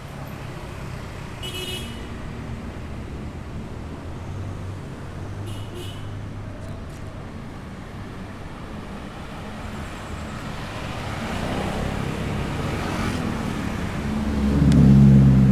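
Busy street traffic: a steady rumble of passing vehicle engines, with two short high-pitched tones in the first six seconds. The traffic grows louder in the second half, and a vehicle passes close near the end, the loudest sound.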